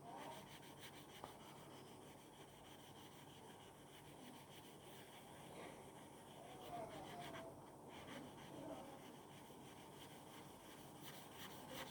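Faint rubbing of a stainless steel broadhead blade stroked across 2000-grit wet-and-dry sandpaper while it is honed.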